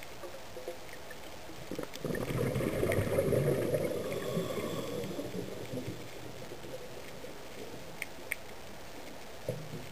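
Underwater bubbling and gurgling rush of water that rises about two seconds in and fades out by about six seconds, with a few faint sharp clicks near the end.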